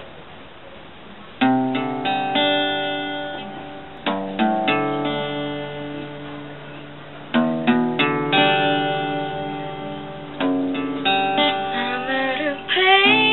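Guitar chords struck about once every three seconds, each left to ring and fade, starting about a second and a half in. A singing voice comes in over the guitar near the end.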